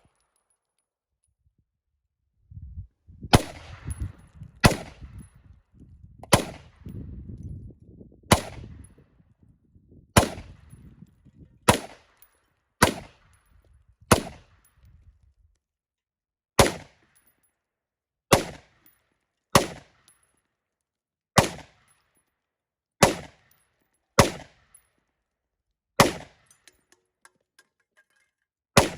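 Gunshots fired one at a time, about sixteen in all, starting about three seconds in and spaced one to two and a half seconds apart. A low rumble runs under the first dozen or so seconds.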